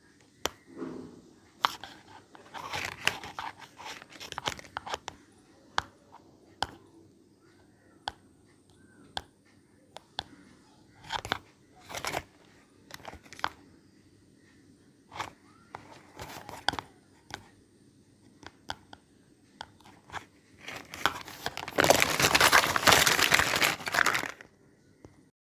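Unboxing of a miniature toy kitchen set: scattered light clicks and taps of small pieces and short bursts of crinkling packaging. About 21 seconds in comes a loud stretch of crinkling and tearing wrapper that lasts about three seconds and then stops.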